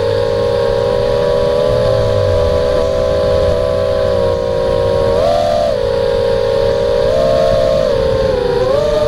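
Quadcopter's electric motors and propellers whining as it flies, several close tones moving together and stepping up and down in pitch with the throttle, most clearly rising and falling back about five seconds in.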